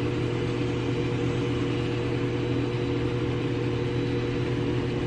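Steady electric hum from a running motor, with a constant hiss under it and no change in pitch or level.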